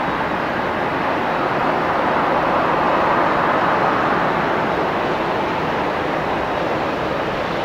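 Twin General Electric CF6-80E1 turbofans of an Airbus A330-300 at takeoff thrust, a steady jet roar as the airliner climbs out, swelling slightly to its loudest about three seconds in.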